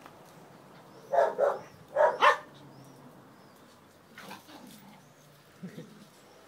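Small dogs barking during rough play: four sharp yaps in two quick pairs about a second in, followed by a few fainter, lower sounds.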